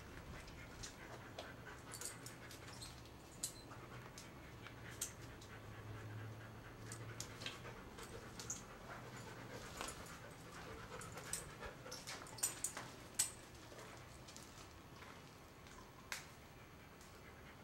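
Faint panting of a dog, with scattered small clicks and scuffs of steps over a debris-covered tile floor; the sharpest clicks come about twelve to thirteen seconds in.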